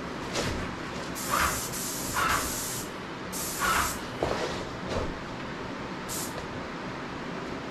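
Graco 390 airless paint sprayer's gun spraying paint in trigger pulls: one long hiss of about two seconds, a shorter one right after, and a brief spurt near the end, with a few light knocks in between.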